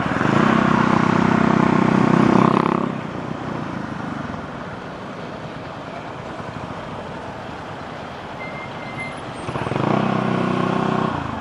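Honda ADV150 scooter's single-cylinder engine pulling under throttle at steady revs for about three seconds, then easing off to wind and road noise, then pulling again about ten seconds in.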